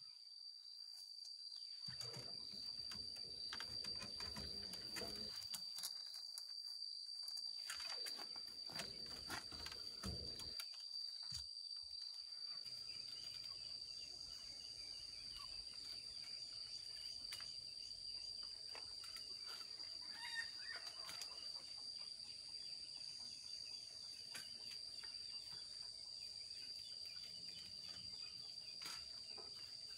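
Steady high-pitched insect drone, with scattered light knocks and rustles from bamboo fence slats being worked.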